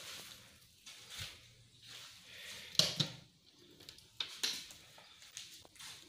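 Footsteps of a person walking, with irregular scuffs about every second or so.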